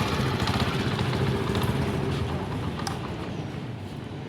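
Honda 70 motorcycle's single-cylinder four-stroke engine running steadily at idle with its exhaust note; it grows a little quieter in the second half.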